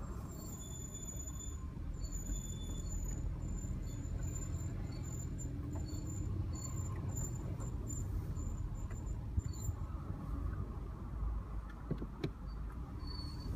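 Brake squeal from an Audi A3 (8V) with brakes about 6,500 miles old: a thin, very high-pitched squeal in short repeated chirps, over the low rumble of the car rolling. The chirps die away about two-thirds of the way in, and a few return near the end.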